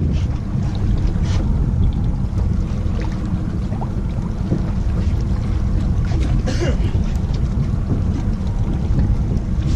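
Steady low rumble of a fishing boat out on the water, with wind buffeting the microphone.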